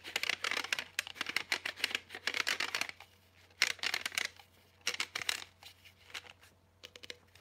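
Fingernails tapping and scratching on a tub of body cream for ASMR. A fast flurry of crisp taps and scratches runs for about three seconds, then a few scattered taps follow.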